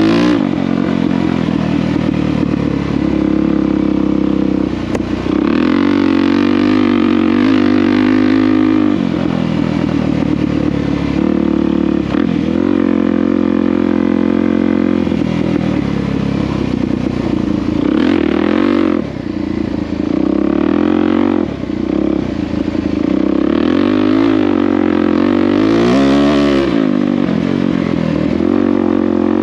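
Single-cylinder motorcycle engine being ridden, its revs rising and falling again and again as the throttle is opened and eased off, with two brief drops in level about two-thirds of the way through.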